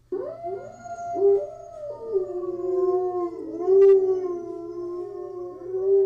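A pack of wolves howling together: several long, overlapping howls at different pitches, sliding up and down.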